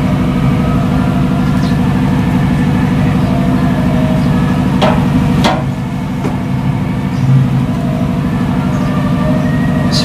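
Steady hum of an engine running nearby, with two sharp clicks about halfway through.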